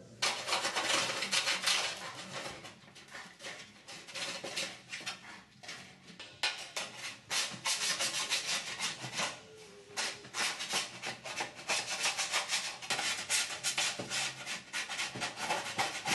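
Repeated scraping strokes of a deburring tool on the edges and drilled rivet holes of aluminium rudder skins, coming in quick, uneven runs with brief pauses: the burrs left by drilling are being taken off before riveting.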